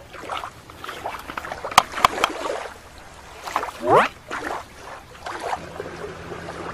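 Shallow water sloshing and splashing as toys are moved through it by hand, with a few sharp clicks and a quick rising squeak about four seconds in.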